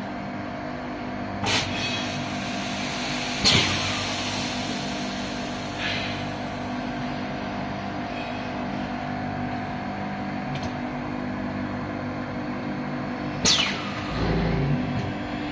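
Sand core-shooting machine running with a steady mechanical hum. Two sharp bursts of air come about two seconds apart, and a third comes near the end, followed by a low rumble.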